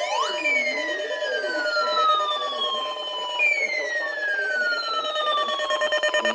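Electronic emergency sirens sounding together: a long falling glide about every three seconds over a steady tone, with a rapid pulsing near the end.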